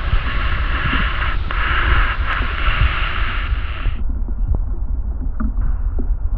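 Rain on a Chinese hackberry (Pu Shu) tree heard through a contact microphone on the tree: a steady low rumble dotted with small ticks of drops striking it, with a hiss over the top that cuts off suddenly about four seconds in.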